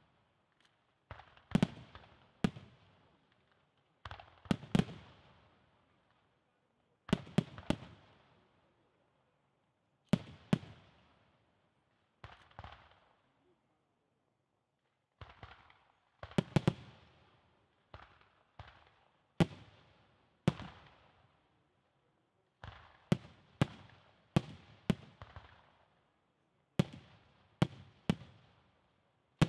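Aerial firework shells bursting overhead: clusters of two to four sharp bangs every two to three seconds, each trailing off in a rolling echo. There is a lull of about two seconds around the middle.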